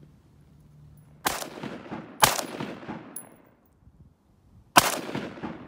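Three single rifle shots from an AR-pattern semi-automatic rifle fired close by, each with a short echo trailing off. The first two come about a second apart and the third after a longer pause; the last two are the loudest.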